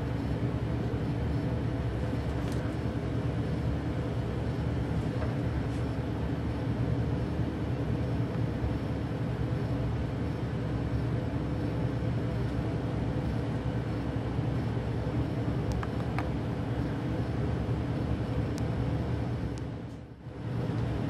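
Electric heat gun running steadily, its fan blowing hot air to shrink heat-shrink tubing over a soldered wire joint; the sound dips briefly near the end.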